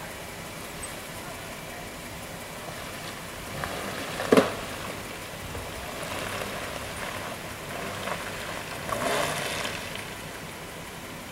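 A Jeep Wrangler crawling slowly over a rutted dirt trail: a faint engine note under a steady hiss, with one sharp knock about four seconds in and a louder rise around nine seconds.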